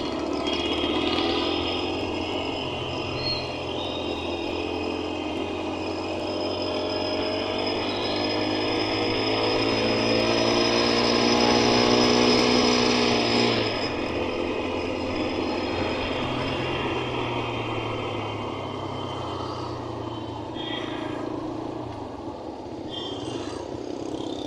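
Road traffic heard while riding: steady engine hum and road noise, with one engine climbing in pitch as it speeds up and dropping away abruptly about halfway through.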